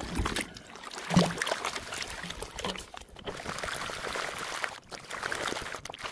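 Water and gravel sloshing in a plastic gold pan as it is shaken and swirled in a shallow stream to wash off the lighter sand, with the stream running around it.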